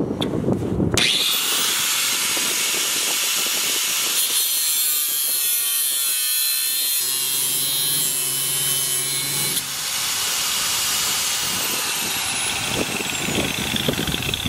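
4.5-inch angle grinder cutting a small notch into the sheet-steel wheel well of a pickup, the disc screeching through the metal. The cutting starts about a second in.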